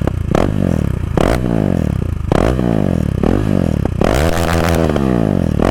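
KTM Duke 390's single-cylinder engine, running without its stock exhaust, revved while standing in a series of quick throttle blips, very loud. One longer rev comes about four seconds in.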